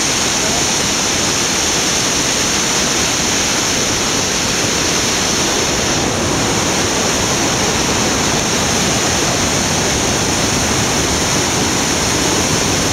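A fast whitewater mountain river rushing over boulders: loud, steady and unbroken.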